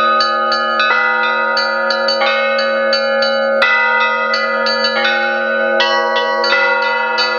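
Russian Orthodox church bells rung by hand: lighter bells struck in quick, irregular strokes, several a second, over the steady ringing of heavier bells.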